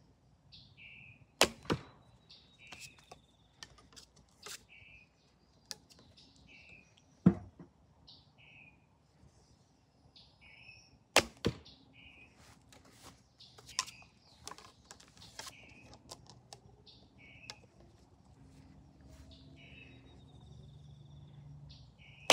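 Traditional longbow shooting: sharp thwacks of the string on release and of arrows striking the target, a few seconds apart, the loudest about a second and a half in, near the middle and about eleven seconds in. A songbird repeats a short two-note call about every second and a half throughout.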